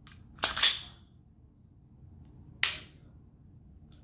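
Glock 23 striker, fitted with a ZEV 2 lb reduced-power striker spring, snapping forward in the slide during a pencil test. A sharp double click comes about half a second in and a single click about two and a half seconds in. The test shows the lighter spring still drives the striker hard enough to make the pencil jump.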